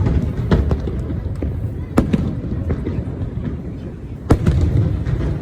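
Aerial fireworks bursting, sharp bangs over a low rolling rumble, loudest about two seconds in and again just after four seconds.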